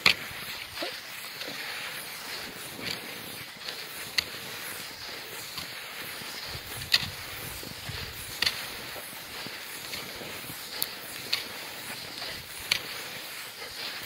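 Footsteps crunching on a snow-packed road, with a sharp tick roughly every one and a half seconds, over a steady hiss.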